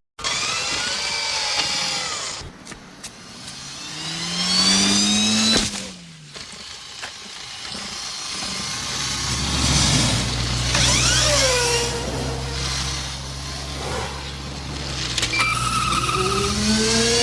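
Remote-control toy car's electric motor sound effects: a series of whines that glide up and down in pitch as it revs and slows, with a steady low hum underneath from about halfway through.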